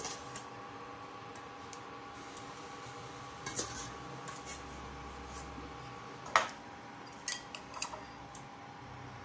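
Scattered clinks and taps of a metal wire skimmer and a spoon against a steel pot and a china bowl while cooked sago balls are lifted out and spooned with garlic oil, with one sharp clink about six seconds in and a quick run of taps soon after. A steady faint hum runs underneath.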